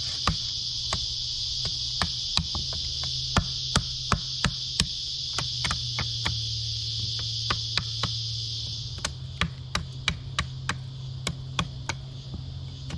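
Sharp, irregular knocks, as of wood being struck with a hand tool, about one or two a second and coming faster after about nine seconds, over a steady high-pitched buzz of insects.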